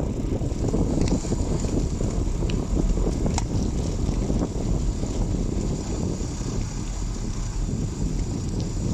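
Wind rushing over the microphone and bicycle tyres rumbling on a wet road during a downhill descent, with a few small clicks and rattles from the bike.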